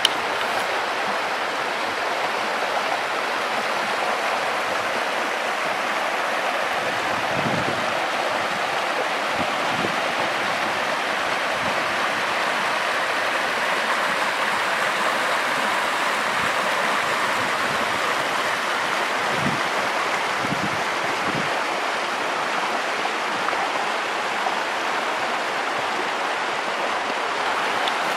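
Mountain stream rushing steadily over a rocky bed in small white-water cascades.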